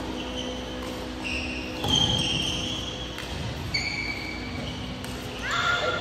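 Shoes squeaking in short high squeals on an indoor badminton court as players move and lunge, with sharp racket-on-shuttlecock hits every second or so. A steady low hum runs underneath.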